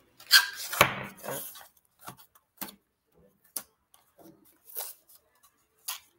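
Hands opening a small cardboard gift box of soaps: a loud rustling scrape about half a second in, then short scattered rustles and taps as the flaps and the paper inside are handled.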